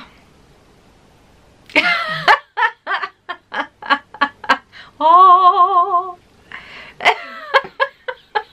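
A woman and a boy laughing: a run of quick ha-ha pulses, then a wavering high-pitched squeal held for about a second midway, then more bursts of laughter.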